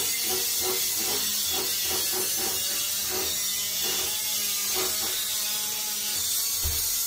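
Steel drywall knife and trowel scraping joint compound over a plasterboard ceiling and off a hawk, in quick repeated strokes over a steady hiss.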